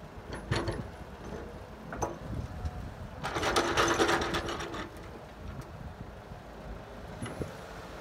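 Caterpillar excavator's diesel engine running as its bucket tips soil into a steel dump truck bed; about three seconds in the load pours in for a second and a half with a dense rattle of clods, the loudest part.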